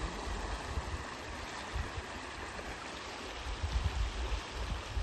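Brahmaputra floodwater flowing: a steady rushing wash of water, with irregular low rumbling underneath.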